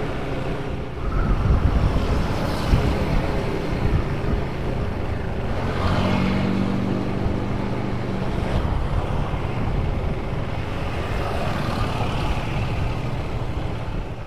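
Wind buffeting the microphone over the engine and road noise of a motorcycle being ridden. A steadier engine hum stands out for a couple of seconds about six seconds in.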